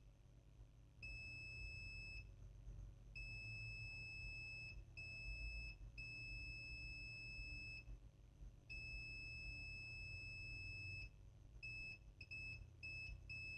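Multimeter's continuity buzzer giving a steady high beep in irregular stretches of about half a second to two seconds while the probes touch the laptop motherboard's main power rail, then a few quick short beeps near the end. The beeping marks the rail as shorted.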